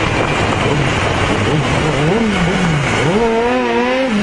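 Motorcycle engine revving while riding, over steady wind and road noise. Its pitch rises and falls twice, then holds near the end.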